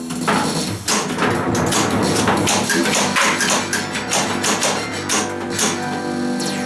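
1987 Williams Big Guns pinball machine in play: its electronic game music runs continuously, with many sharp clacks and knocks from the ball, flippers and targets over it.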